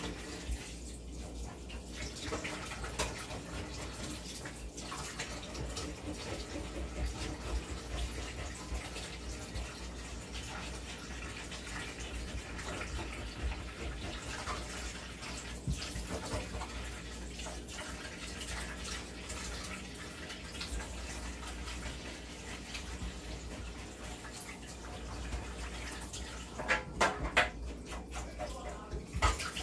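Kitchen tap running steadily into a stainless steel sink as a fish is washed under it, with a few sharp knocks near the end.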